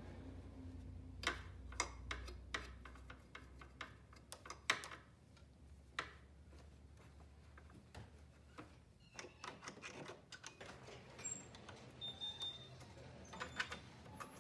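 Scattered light clicks and taps of small plastic and metal parts as the bobbin and hook area of a Janome 2212 mechanical sewing machine is brushed out, wiped with a rag and handled. The clicks come irregularly, closer together in the second half, over a faint low hum that fades after the first few seconds.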